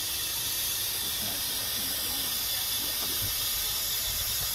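Compressed gas hissing steadily from cylinders through a fill hose into a large latex high-altitude balloon as it is inflated.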